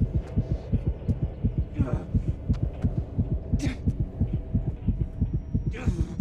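Heavy, fast heartbeat sound effect thumping steadily over a low hum, with three short breathy gasps spread through it.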